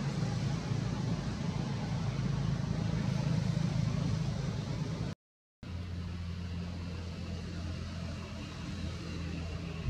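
Steady low engine hum, like a motor vehicle idling or running nearby. It cuts out to silence for half a second about five seconds in, then carries on.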